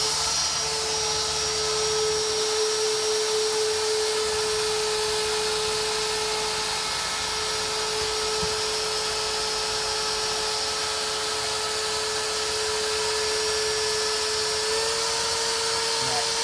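X-Carve CNC router's spindle running at speed with a steady whine as a 1/8" single-flute endmill cuts into an acrylic sheet. The pitch steps up slightly near the end.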